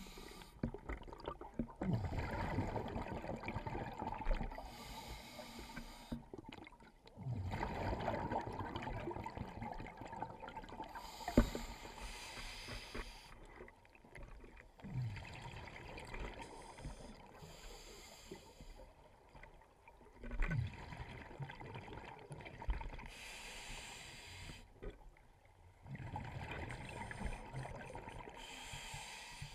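Scuba regulator breathing heard underwater through a camera housing: slow cycles of hissing inhales and rushing, bubbling exhales, about every five to six seconds. A single sharp click about eleven seconds in.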